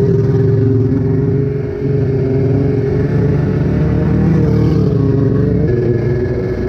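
Yamaha Superjet stand-up jet ski's two-stroke engine running steadily at low throttle, putting along, with a brief dip about two seconds in. The engine is held to low revs while a newly fitted forged piston is broken in.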